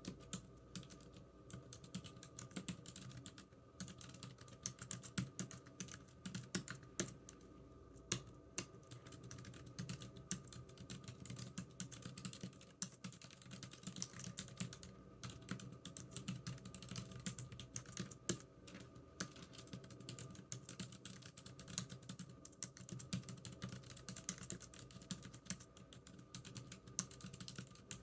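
Computer keyboard typing: a fast, irregular run of key clicks with brief pauses between bursts.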